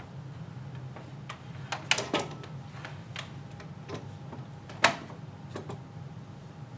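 Scattered plastic clicks and knocks as a power cord is fitted into the port at the back of a Shotbox folding photo light box, the sharpest click about five seconds in. A low steady hum runs underneath.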